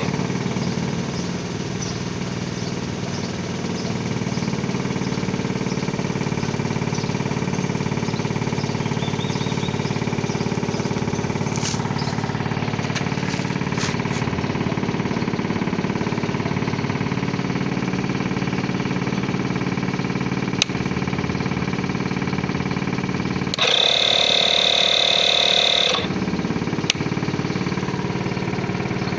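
INGCO digital portable air compressor running steadily, its motor and piston pumping. About two-thirds through, a louder high-pitched sound lasts about two seconds, and there are two sharp clicks.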